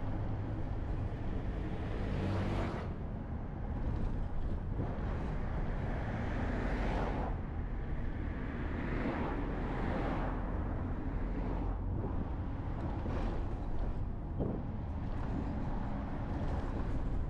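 Bus driving along a city road, heard from on board: a steady low engine hum under tyre and road noise, with the noise swelling several times as traffic goes past.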